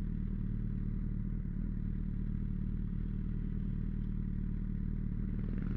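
Motorcycle engine idling steadily with the bike standing still.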